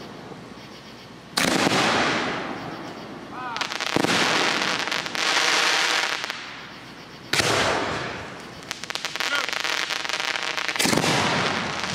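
Aerial fireworks shells bursting: four sudden booms about three seconds apart, each fading out over a couple of seconds.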